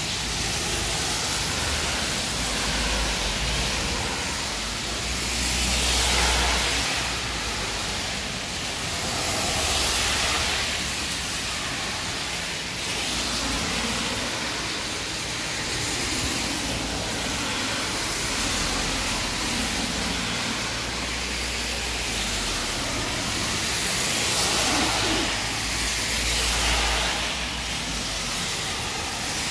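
Rain falling steadily, with cars passing on the wet road several times, their tyres swishing through the water.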